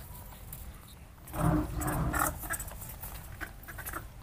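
A baby monkey's short call, lasting about a second, a little over a second in, over a faint low background rumble.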